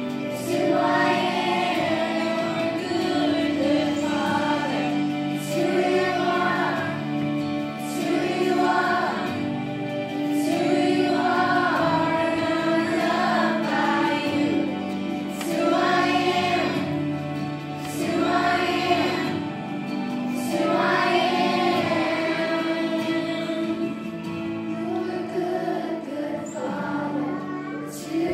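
Children's choir singing a worship song in unison with instrumental accompaniment.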